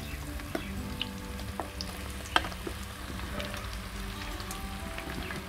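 Besan- and masala-coated bitter gourd slices sizzling as they slide off a plate into hot oil in a steel kadhai, with a few sharp clicks, the loudest a little past two seconds in.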